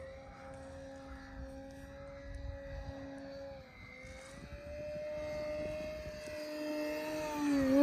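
E-flite Cessna 150T radio-controlled model airplane flying, its electric motor and propeller making a steady whine that wavers slightly in pitch with the throttle. The whine grows louder over the last few seconds as the plane comes in close.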